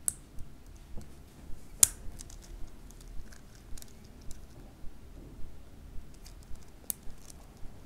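Small plastic toy parts clicking and tapping as couplings are fitted onto a Playmobil fire hose, a ribbed plastic tube, with scattered light clicks and two sharper snaps, one about two seconds in and one near the end.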